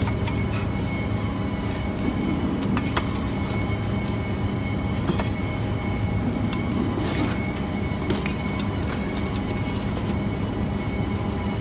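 Steady machinery hum with scattered clicks and knocks.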